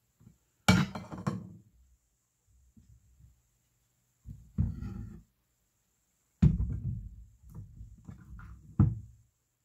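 Tableware being handled on a table: a spoon and dishes knocked and set down, four separate knocks and clatters, the loudest about two-thirds of the way in.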